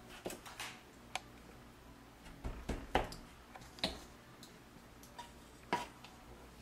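A red measuring cup clicking and knocking against a stainless steel mixing bowl and a plastic flour tub as flour is scooped and tipped in. The light, irregular knocks are loudest about three seconds in.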